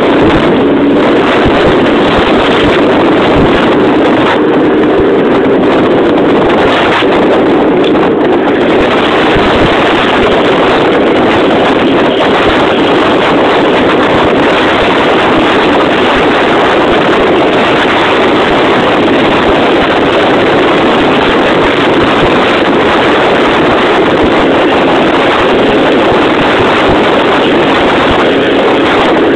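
Motorcycle engine running steadily at road speed, heard from onboard, mixed with wind buffeting the microphone.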